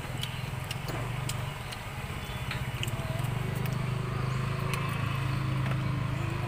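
A motor vehicle engine running as a steady low drone that grows louder about three seconds in and eases off near the end, with a few light clinks of a spoon and fork against a ceramic bowl.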